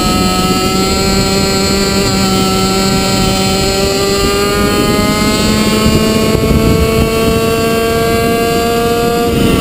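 Two-stroke kart engine pulling hard down a straight, heard from on board the kart, its pitch climbing slowly and steadily, then beginning to drop right near the end.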